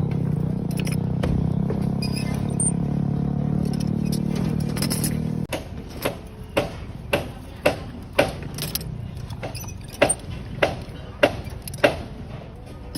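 A steady engine-like hum that cuts off about five seconds in, followed by a run of sharp metallic clicks or taps, roughly two a second.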